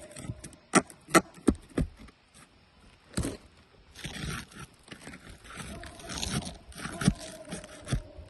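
Hand tools knocking and scraping on asphalt roof shingles: four sharp taps in the first two seconds and another about three seconds in, then a stretch of rough scraping.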